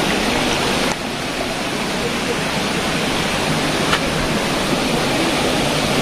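Steady rush of a waterfall's falling water, with a slight drop in level about a second in and a faint click near four seconds.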